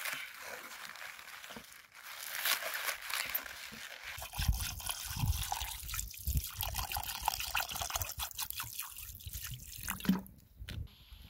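Knife cutting through green onions on a wooden cutting board, then water poured in a stream into a stainless steel pot of raw chicken pieces, splashing and trickling. The pour starts about four seconds in and tails off near the end.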